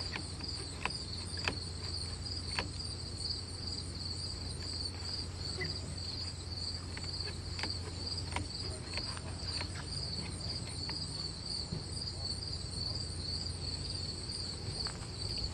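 Crickets chirping in a steady, pulsing chorus, with a few scattered light clicks of small hand-tool work on a metal handlebar fitting.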